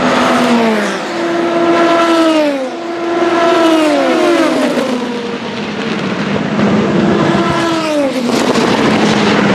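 Several Le Mans hypercars, the Vanwall Vandervell 680 with its Gibson V8 among them, passing at racing speed one after another. Each engine note falls in pitch as its car goes by, with overlapping notes from the cars in the pack.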